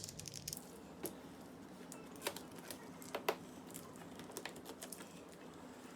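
Cardboard box and packaging being opened and handled: scattered light clicks, taps and rustles, with a few sharper knocks about one, two and three seconds in.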